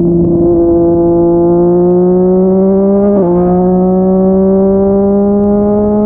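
Yamaha MT-09's inline-triple engine through a Yoshimura R55 slip-on exhaust, pulling under steady acceleration with its pitch slowly climbing. About three seconds in, the pitch drops sharply at an upshift, then climbs again in the next gear.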